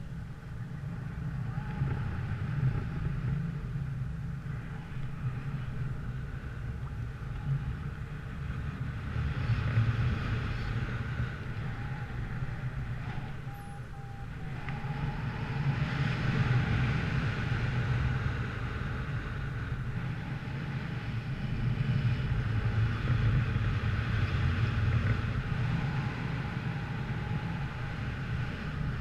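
A vehicle running, with wind buffeting the camera microphone as a steady low rumble that swells and eases several times.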